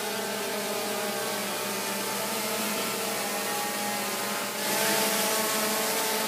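DJI Phantom quadcopter's propellers whining steadily in several tones as it hovers and flies overhead, growing louder and hissier about two-thirds of the way through.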